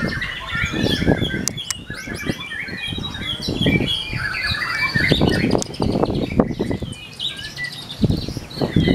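White-rumped shama singing a long, varied run of quick chirps and whistles. Repeated dull low thumps and rustles sound underneath.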